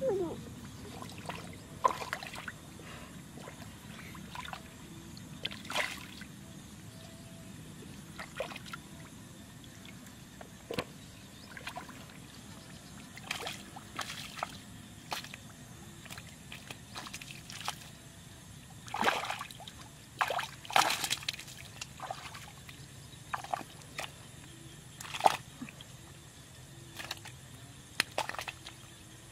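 Hands groping through shallow muddy water while feeling for fish, making irregular brief splashes every second or few, most frequent about two-thirds of the way through.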